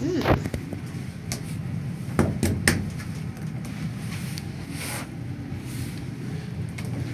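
Montgomery Kone elevator stopping and its doors working: a low steady hum with a handful of sharp clicks and clunks about one to three seconds in, and a short hiss near five seconds.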